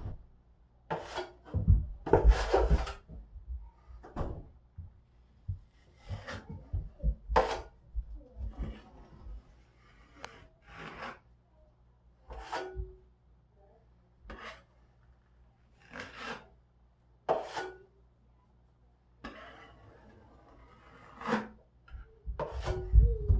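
Drywall knife scraping wet joint compound across a taped drywall patch: short rasping strokes, coming irregularly every second or two.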